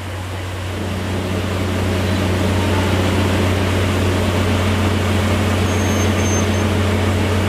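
DE10 diesel-hydraulic locomotive pulling away with its coaches, the diesel engine running under power as a steady low drone that grows louder over the first two seconds and then holds.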